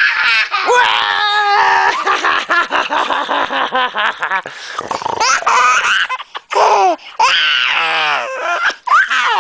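A young child laughing and squealing in a high voice, in a rapid run of bursts with a few short breaths between.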